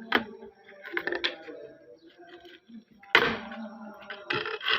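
Clicks and knocks of hard objects being handled, with a louder knock about three seconds in.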